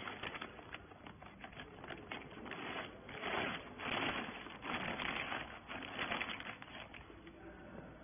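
Clear plastic bag crinkling and rustling in irregular bursts as it is pulled over a freshly compressed bale of wiper rags, loudest in the middle of the stretch.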